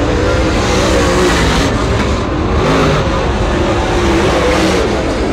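A lone dirt super late model race car's V8 engine running hard on a qualifying lap, its pitch rising and falling as the throttle comes off and back on through the turns.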